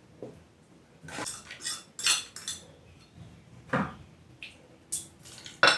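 Kitchen utensils and pots clinking and knocking while food is prepared: about eight separate short clinks and knocks at irregular intervals.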